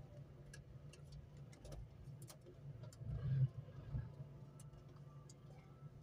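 Faint, irregular clicks and ticks of wires, connectors and a small tool being handled in a car's wiring harness, over a low steady hum, with one brief louder bump a little over three seconds in.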